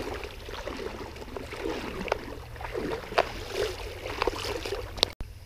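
Someone wading upstream through a shallow creek: irregular sloshing and splashing of legs moving through the water, with scattered small knocks over a steady low rumble on the microphone.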